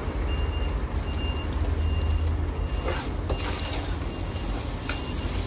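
Low diesel-truck rumble with a vehicle reversing alarm beeping at an even pace, a little faster than once a second. A few light metal clinks come about three seconds in.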